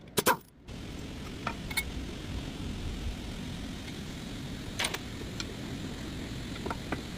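Steady low vehicle rumble with a few light clicks and knocks scattered through it, and two sharp clicks right at the start.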